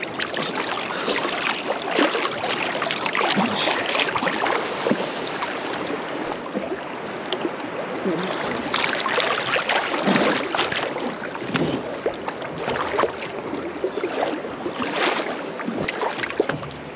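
Sea water splashing and sloshing as a swimmer strokes through it. The action camera is held right at the surface, so irregular splashes and water rushing over the microphone come through close and loud.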